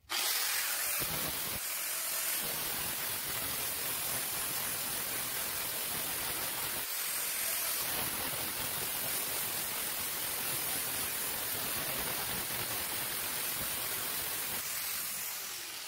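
Angle grinder with a 40-grit aluminium oxide flap disc grinding the bevel into a hardened lawnmower-blade steel knife blank, a steady grinding noise that cuts off suddenly at the end.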